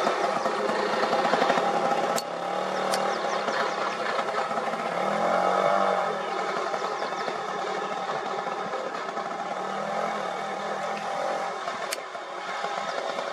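Small three-wheeler (tuk-tuk) engine idling with a rapid, steady putter. Its pitch rises and falls briefly about five seconds in, and a few sharp clicks are heard.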